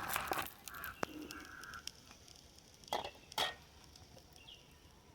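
Kitchen utensils clinking and knocking about five times, the two loudest close together about three seconds in, over a faint sizzle of hot frying oil.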